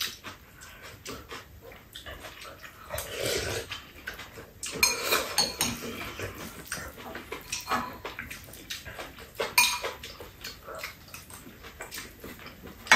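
Metal spoons clinking and scraping against bowls and a frying pan during a meal, in irregular short clicks, with mouth sounds of chewing.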